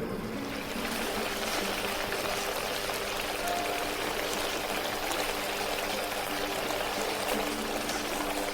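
Chopped chili sauce bubbling steadily as it simmers and reduces around soft tofu in the pan, a dense crackling hiss.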